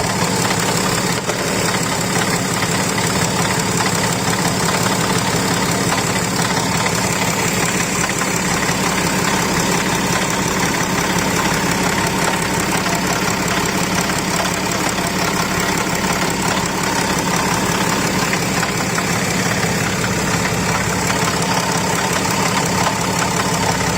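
BMW X6 engine idling steadily with its cooling fan removed, carrying a rotational noise from the front of the engine that the mechanic thinks is probably the water pump.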